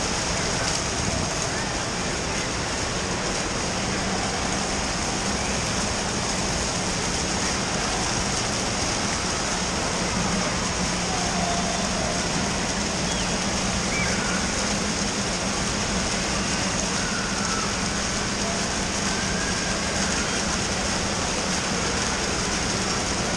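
Indoor water park din: a steady rush of running and splashing water with a low hum under it, and the faint chatter and shouts of a crowd mixed in.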